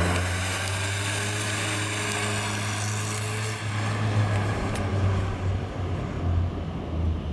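1977 MG Midget's 1500 cc four-cylinder engine running as the car drives past and away. The engine note holds steady at one pitch for the first few seconds, then turns more uneven.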